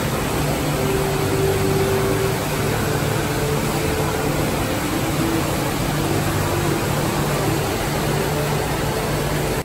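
Steady rushing roar of the Rain Vortex, a tall indoor waterfall pouring from an opening in a glass dome into a pool below.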